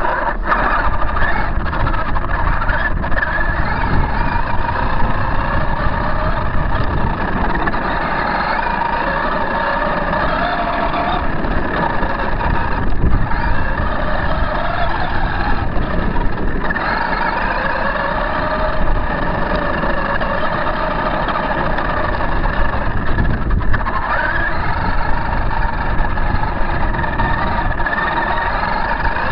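Losi High Roller RC truck driving, its motor and drivetrain whining in several tones that rise and fall as it speeds up and slows, over a steady rushing noise.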